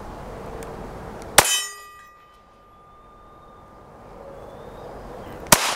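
Two shots from a Taurus GX4XL 9mm pistol, about four seconds apart, fired with a deliberately limp wrist to test whether it still cycles reliably; it passes. A ringing tone follows the first shot and fades over about two seconds.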